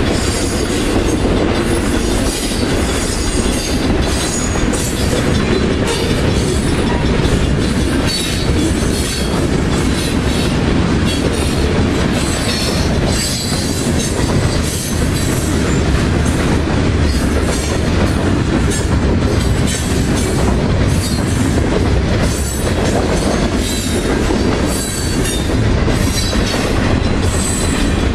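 Loud steady rumble of a CN freight train's cars rolling past at close range, wheels clicking over the rail joints again and again.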